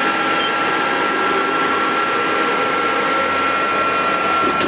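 Mori Seiki NL1500 SMC CNC lathe running, a steady mechanical hum and hiss with a thin, constant high whine.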